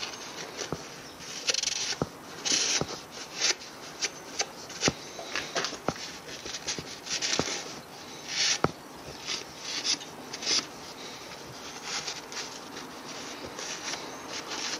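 A rag wiping and rubbing inside a Bedford RL truck engine block, heard close up: irregular short rustling strokes mixed with small sharp clicks and scrapes against the metal.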